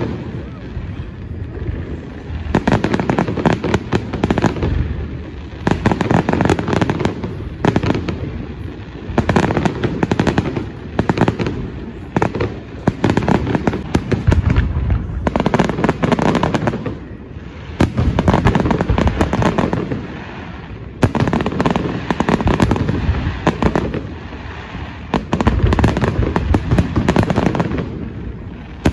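Aerial fireworks shells bursting in rapid volleys of bangs and crackles, each volley lasting a few seconds with short lulls between.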